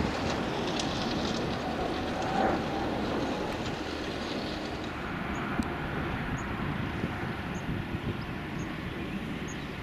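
Jet engine noise from a Eurofighter Typhoon's twin turbofans as it flies past with landing gear down: a steady rushing that slowly fades.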